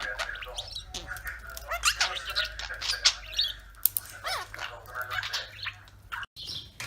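Pet parrots chattering in short chirps and squawks, some sliding up or down in pitch, mixed with sharp clicks.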